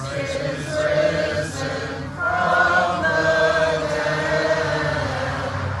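A group of voices singing a Byzantine liturgical chant a cappella, holding long sustained notes.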